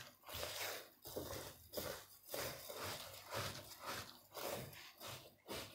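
Gloved hands kneading a bulgur and pepper-paste mixture for çiğ köfte in a stainless steel bowl, still without water: faint rhythmic rubbing and pressing, about two strokes a second.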